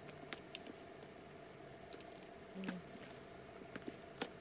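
A few light, scattered clicks and taps of small metal hardware as a handbag's strap and clasps are handled.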